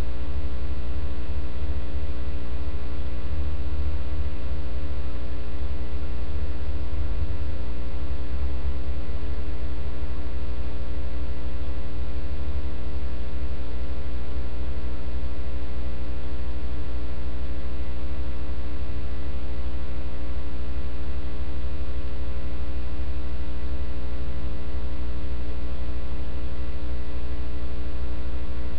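Loud, steady electrical mains hum with a buzzy stack of higher overtones, unchanging throughout.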